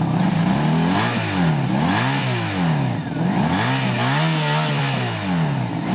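1975 Yamaha RD350's air-cooled two-stroke parallel twin being revved from idle, the pitch climbing and falling back several times in quick blips, with one longer held rev past the middle.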